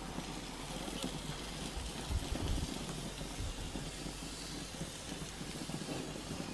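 Low, steady hiss of a lit gas grill as bacon-wrapped chicken legs are set on the hot grate to sizzle, with a few low rumbling thumps about two seconds in.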